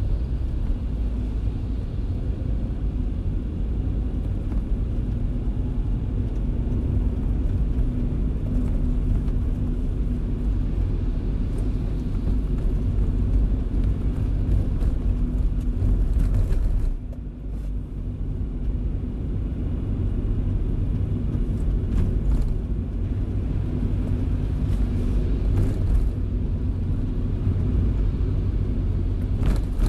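Car driving in the rain with a steady low road and engine rumble, a few short hisses and a brief dip in level about seventeen seconds in.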